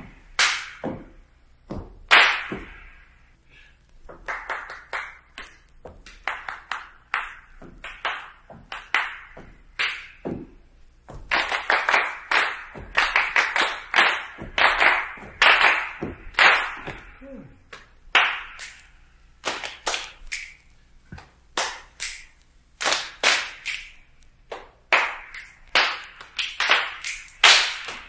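Body percussion in short rhythmic phrases: hand claps combined with thigh slaps (patsching), finger snaps and foot stamps. Sparser phrases alternate with denser ones, where a group of students echoes each pattern back.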